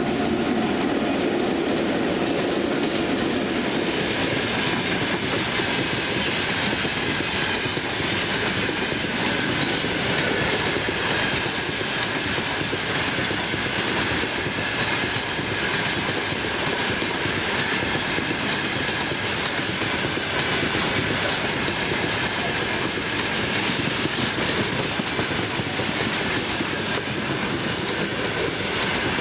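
Freight train of open-top wagons rolling past close by, a steady rumble and clatter of steel wheels on the rails.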